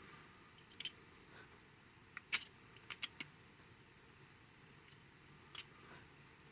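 Faint, scattered small clicks and taps of a folding pocket knife and an oil bottle being handled while oil is put into the knife's gritty lock and pivot.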